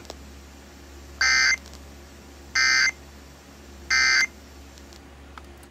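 Emergency Alert System end-of-message (EOM) signal: three short buzzy digital data bursts, each about a third of a second and about 1.4 seconds apart, marking the end of the flash flood warning.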